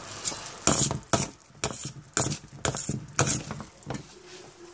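Steel ladle knocking and scraping against a steel pan: a run of about eight sharp metal clinks, roughly two a second, that stops about a second before the end.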